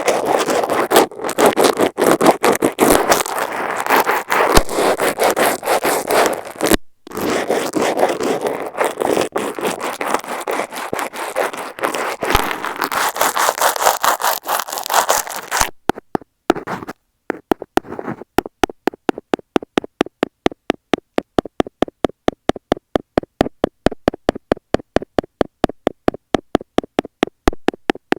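A makeup brush sweeps back and forth directly over an Apple earphone microphone, giving dense bristle scraping. After a short pause, a stainless-steel ear pick taps on the microphone in a fast, even run of clicks, several a second.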